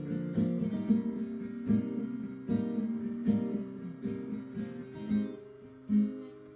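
Acoustic guitar strumming chords with no voice, getting quieter near the end.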